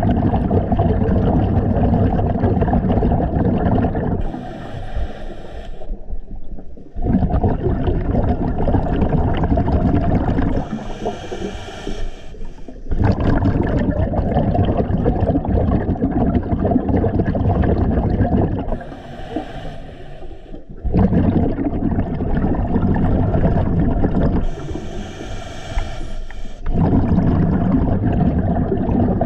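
Scuba diver breathing through a regulator underwater: long, loud bubbling exhalations alternate with shorter, quieter hissing inhalations, about five breaths in all.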